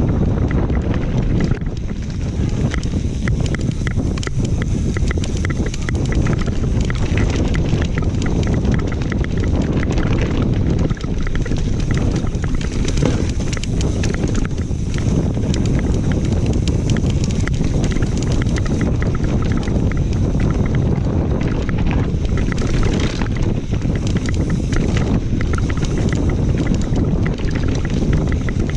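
Wind buffeting the microphone of a camera on a mountain bike riding fast downhill, a heavy steady rumble. Under it the tyres and bike rattle and clatter over a rough dirt trail, with many small knocks.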